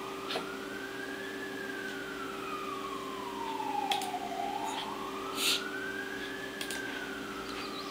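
A siren wailing, its pitch rising and falling slowly, one full cycle about every five seconds. A steady low hum and a few faint clicks sit beneath it.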